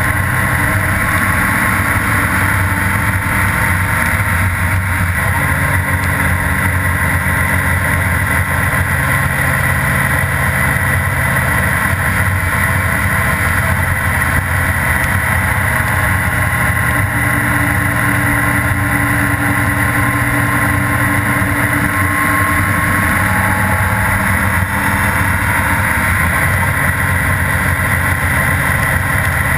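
Honda Gold Wing GL1800's flat-six engine running at cruising speed, its note shifting slightly a few times, under a steady rush of wind and tyre noise on wet pavement, heard from a camera mounted on the motorcycle.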